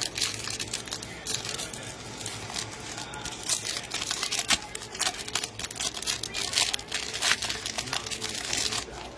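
Foil wrapper of a trading-card pack crinkling and tearing as it is opened and the cards are handled, in a continuous run of irregular crackles that stops near the end.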